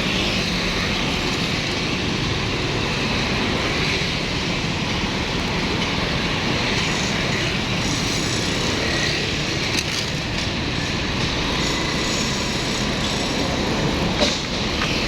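Steady, loud mechanical street noise from engines, the road-work machinery and the passing traffic, with a couple of brief clicks near the end.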